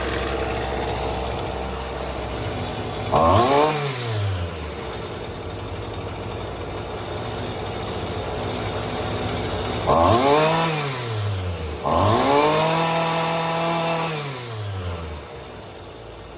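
Husqvarna string trimmer's small gas engine idling, with the throttle blipped three times so it revs up and falls back, the last rev held for a couple of seconds. It is running again after a loose fuel line was reconnected, during carburettor idle adjustment.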